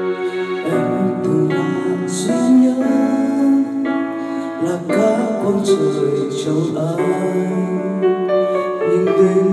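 Karaoke backing track of a slow Vietnamese pop ballad, with a voice singing the melody over it.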